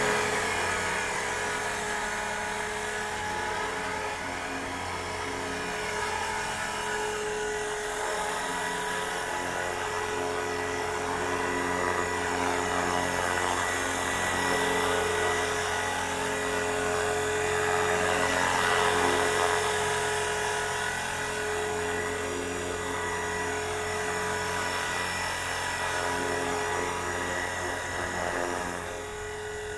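ALZRC X360 electric RC helicopter hovering: a steady whine of the motor, gear drive and rotors, swelling and easing slightly in pitch and loudness as it holds position. Its main gear is freshly replaced, and no chipped-gear noise is heard.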